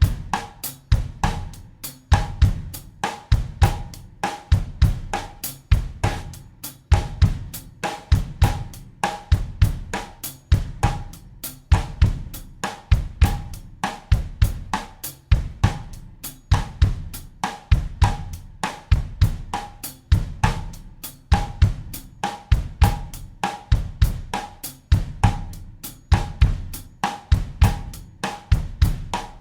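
Acoustic drum kit playing a steady bossa nova groove at 100 beats per minute in 4/4: bass drum, snare or cross-stick, and hi-hat or cymbal strokes in an even repeating pattern.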